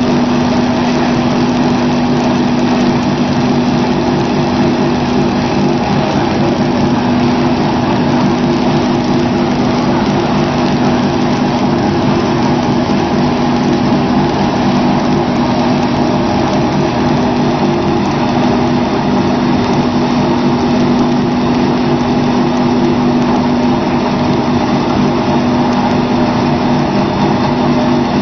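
Briquetting machine running steadily while turning out briquettes: a loud, even mechanical drone with a strong low hum.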